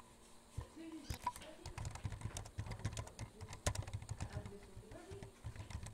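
Typing on a computer keyboard: a quick, uneven run of key clicks starting about a second in.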